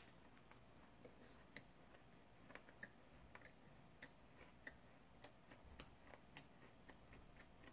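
Near silence with faint, scattered small clicks, about one a second, from eating a paper-wrapped ice cream cone and handling it.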